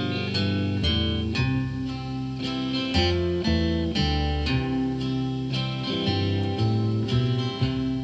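Instrumental break of a song: acoustic guitar picked and strummed over a backing track of electric guitar and bass, with no singing.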